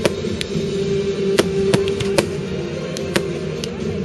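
Aerial firework shells bursting in the sky: about seven sharp bangs spread unevenly over four seconds, over a steady background of sustained tones.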